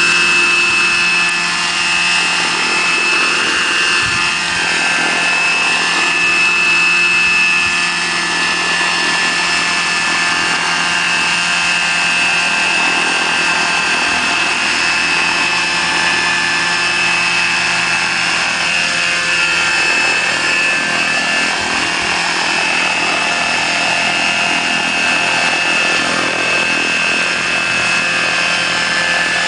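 Electric-powered scale model Bell 214 helicopter with a 1.8 m rotor hovering: the electric drive and rotor give a steady high-pitched whine over an even whoosh.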